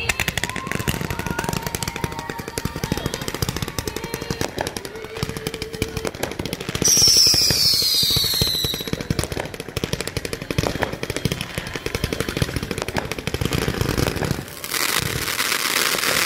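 A consumer fireworks cake firing rapid volleys of shots. A loud, falling whistle comes about seven seconds in, and a hissing crackle near the end. Music plays faintly underneath in the first part.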